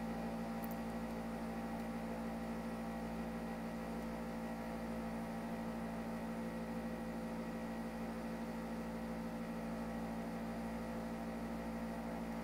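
Steady electrical hum with a low hiss underneath, several fixed tones held unchanging.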